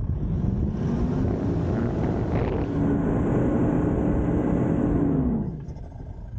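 Toyota Land Cruiser Prado engine revving up under load and held at high revs for a couple of seconds, then dropping off about five and a half seconds in, as the SUV works through soft desert sand where it is getting bogged down.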